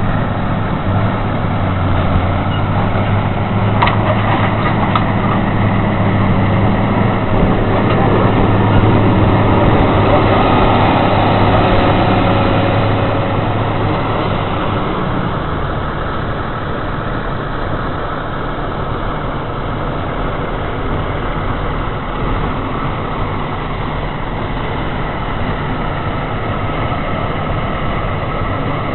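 Heavy diesel truck and machinery engines running steadily, a low engine hum under a wide noisy wash; the low hum weakens about halfway through.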